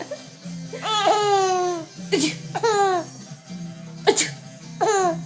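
A baby laughing in high squealing calls that fall in pitch, one long call about a second in and then two shorter ones, each just after a short sharp burst that fits the mother's sneezes she is laughing at.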